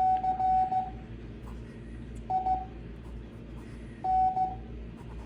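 Morse code practice audio from the ARRL's W1AW 5 words-per-minute code practice: a single steady beep pitch keyed in dots and dashes. Three short groups of beeps come near the start, about two seconds in and about four seconds in, with long gaps between characters, as in slow-speed code practice.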